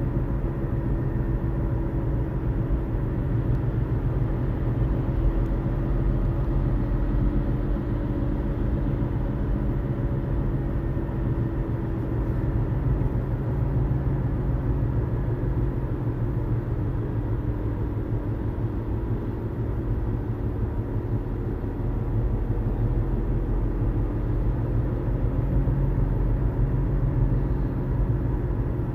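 Mazda CX-5 cabin noise while driving: a steady low rumble with a faint hum over it, which carries the low thrumming noise the owner cannot identify.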